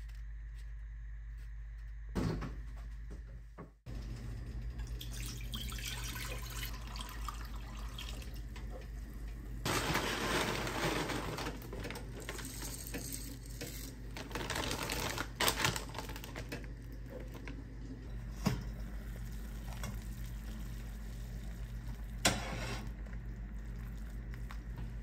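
Kitchen work sounds over a steady low hum: water running from a tap into a stainless steel pot for a couple of seconds, and a few sharp knocks and clinks of pots and utensils.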